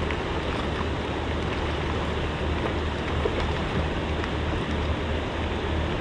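Steady rushing noise of wind and water on open lake water, with a constant low hum underneath.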